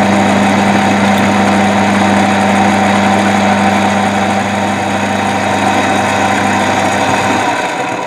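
Milling-drilling machine's spindle motor running with a steady hum while a small twist drill bores through a metal disc; near the end the motor is switched off and runs down. The drill made hard work of the hole, a sign the machinist reads as the small bit being blunt.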